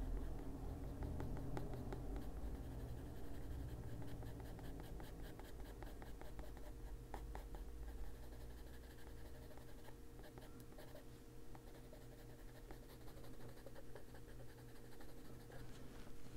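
Derwent Drawing Pencil scratching faintly on paper in many short colouring strokes, over a steady low hum.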